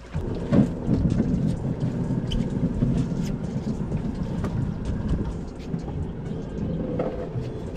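A boat's outboard motor running steadily, a low rumble, with a few light knocks on deck.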